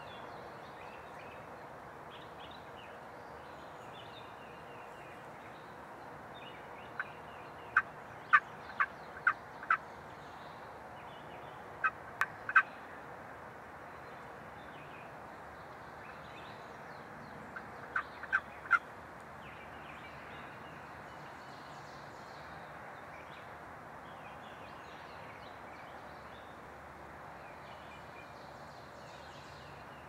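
Wild turkey calling in three short runs of sharp notes, about six, then three, then four, over a steady faint woodland hiss.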